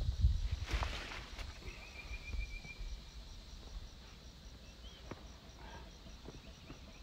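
Hillside ambience: an insect chirring in a faint, steady, fast pulse, a bird giving a short trill of quickly repeated notes about two seconds in and a single chirp near five seconds. A low rumble at the start dies away over the first few seconds, and there is a brief rustle about a second in.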